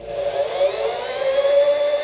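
Electric drill spinning a twist bit into painted sheet metal; the motor's whine jumps up in level at the start and rises in pitch over about a second and a half, then holds steady.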